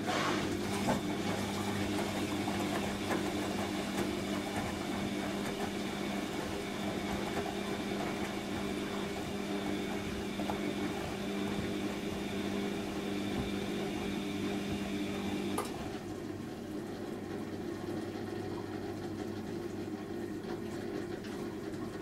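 Bosch Maxx 5 washing machine draining before the spin: a steady machine hum with water, the drain pump running while the drum turns the wet laundry. About two-thirds of the way through, one hum stops suddenly and a quieter steady running sound carries on.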